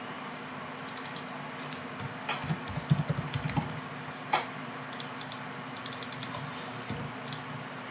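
Typing on a computer keyboard: a quick run of keystrokes a couple of seconds in, one louder key press a little later, then a few lighter taps, over a low steady room hum.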